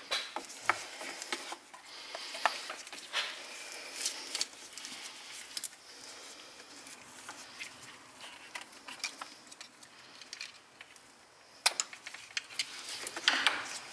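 Gloved hands handling engine wiring, scattered small plastic clicks and rustling as the coolant temperature sensor wire is worked free of its clips, with a few sharper clicks near the end.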